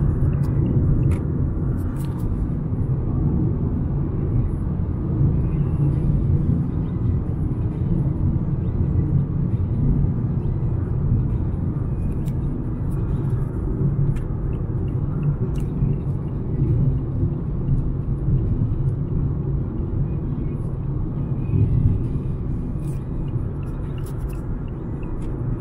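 Car on the move: a steady low rumble of tyres on the road and engine, with a few faint ticks.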